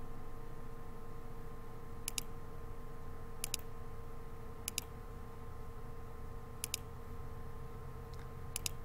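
Computer mouse clicks, each a quick press-and-release double click, about five of them a second or two apart, over a steady electrical hum.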